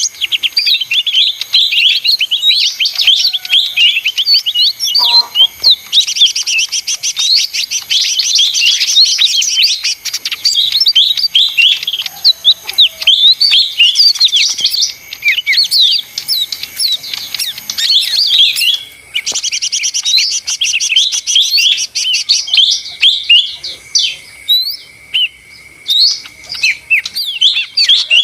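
Cucak ijo mini (lesser green leafbird) singing its busy 'ribut' song: fast, continuous strings of high chirps and trills with no pauses, over a steady high background tone.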